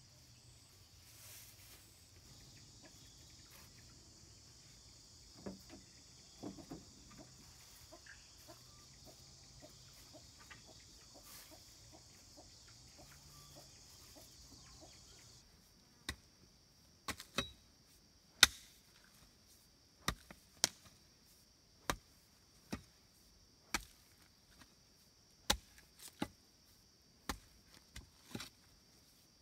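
A steady high drone of insects, then, after an abrupt change about halfway through, a blade chopping wood: a dozen or more sharp single strikes, roughly one a second, with the insects still droning faintly behind.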